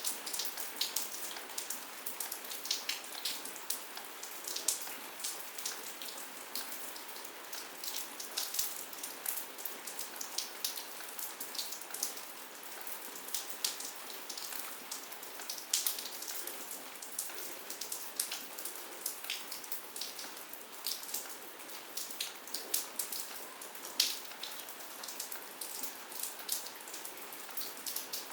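Steady rain falling, with irregular close drops ticking and splatting on hard surfaces.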